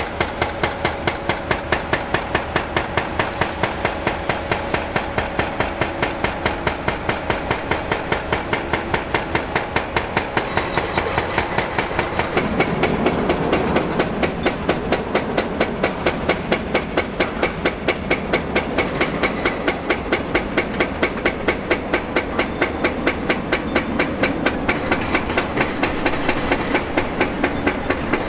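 Background music with a fast, steady beat of about three to four pulses a second. It changes character about twelve seconds in, while the beat carries on unbroken.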